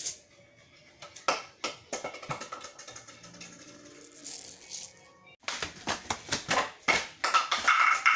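Music with clicking, rattling percussion, sparse at first and much busier for the last few seconds.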